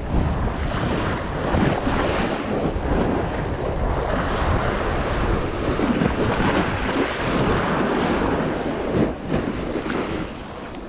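Sea waves washing in, with wind buffeting the microphone in uneven gusts.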